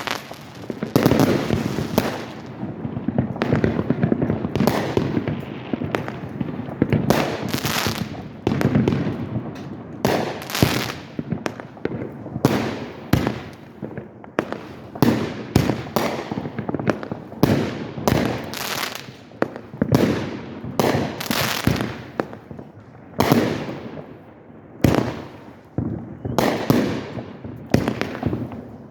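Aerial fireworks exploding in quick succession, sharp bangs roughly one or two a second, each followed by a rumbling echo and crackle.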